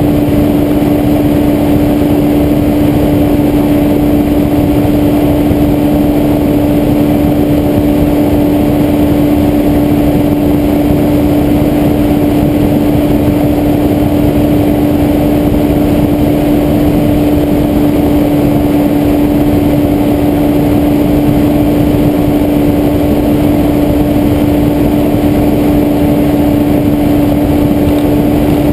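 Weight-shift microlight trike's engine and propeller running at steady cruise power, one unchanging pitch throughout, over a low rush of wind on the microphone.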